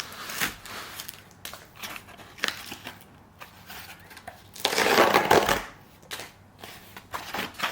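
A book's packaging being handled and opened by hand: scattered crinkles and clicks, with one louder crinkling, rustling burst lasting about a second near the middle.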